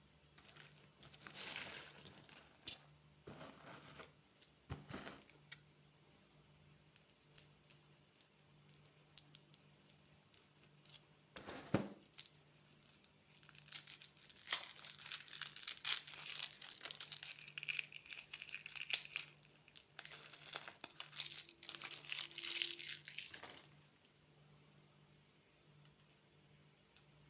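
Plastic candy wrapper being crinkled and torn open: scattered crackles and clicks, a sharp snap about 12 seconds in, then a long spell of continuous crinkling and ripping that stops about three seconds before the end.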